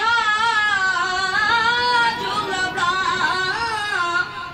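A solo voice singing a slow melody with a wavering, ornamented pitch that slides and trembles on held notes.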